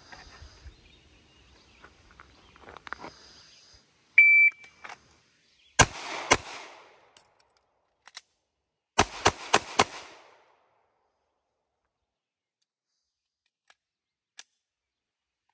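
Shot timer's single high beep, then two pistol shots about half a second apart, a pause of about two and a half seconds with faint clicks during a slide-lock reload the shooter fumbled, then four quick shots within about a second. The whole run, beep to last shot, was timed at 5.62 seconds.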